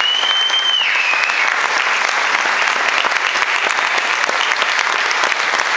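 Audience applauding steadily with many hands clapping. A high held whistle-like tone rides over the clapping at the start, drops in pitch about a second in, and fades.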